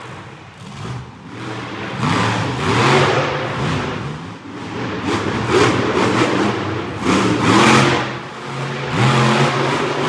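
Monster truck engine revving hard in four or five surges about two seconds apart, the pitch climbing and dropping with each burst of throttle.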